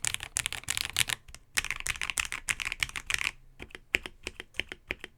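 Typing on an AKKO ACR98 acrylic mechanical keyboard with lubed AKKO CS Jelly White switches and ASA-profile PBT keycaps. A quick, continuous run of keystrokes gives way about three seconds in to separate single presses, about four a second.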